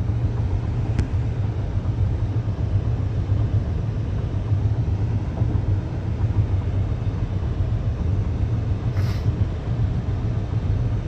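Steady low road and engine rumble heard from inside a moving car, with a brief hiss about nine seconds in.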